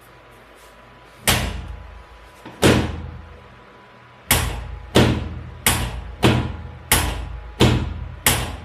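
A series of nine sharp thumps during hands-on chiropractic treatment, each dying away quickly. The first two come about a second and a half apart, then after a short gap they fall into a steady beat of roughly three every two seconds.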